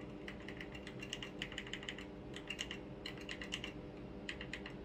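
Light key clicks in quick bursts, several a second with short pauses between them: typing. A faint steady hum runs underneath.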